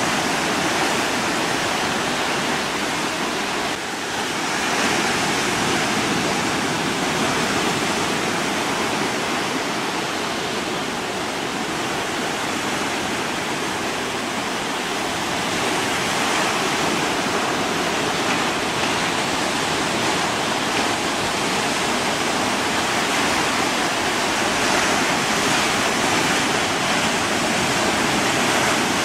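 Steady, even rushing noise with no distinct events, of the kind made by wind or moving water, with a faint steady hum underneath.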